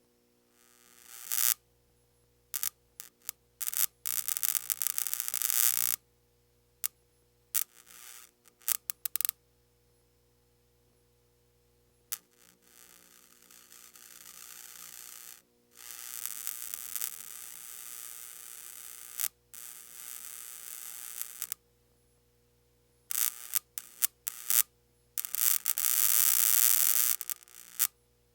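Electrical static crackle: bursts of high crackling hiss that switch on and off abruptly, with a few sustained stretches of several seconds broken up by short snaps and quiet gaps.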